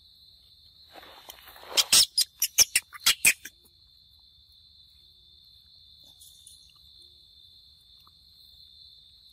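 Steady high-pitched insect chorus, with a quick run of about eight loud, sharp clicks about two seconds in.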